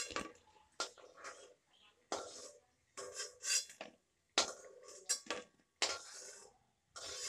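A metal spatula scraping and clinking against a metal kadhai in short, irregular strokes as fried pakoras are lifted out of hot oil.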